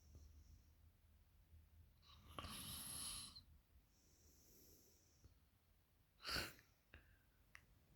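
A sleeping woman's breathing, faint and slow. There is a long noisy breath about two seconds in, a fainter one near five seconds, and a short sharp sound about six seconds in.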